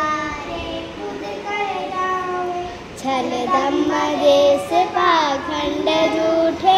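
Children singing a school prayer in Hindi, several voices held on long, gliding notes.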